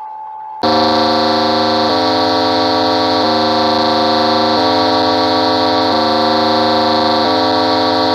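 Synthesized emergency alert alarm starting suddenly about half a second in: a loud, horn-like chord of several steady tones that alternates between two pitches roughly every second and a quarter.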